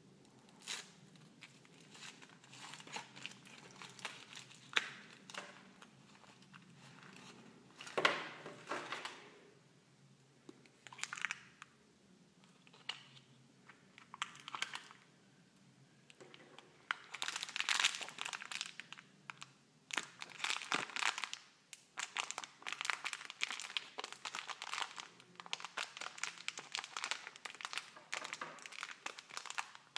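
Foil wrapper of a Kinder Surprise chocolate egg crinkling and tearing as it is peeled by hand, with a louder crunch about eight seconds in. After that comes plastic handling, and in the second half a thin plastic toy bag crinkles in the fingers, making a dense run of small crackles.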